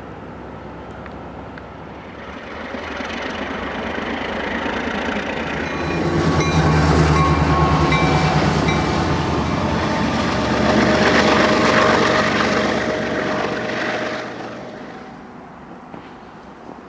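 Diesel-hauled freight train passing: the locomotives' engines grow louder, go by with a low throb, and the train fades away near the end.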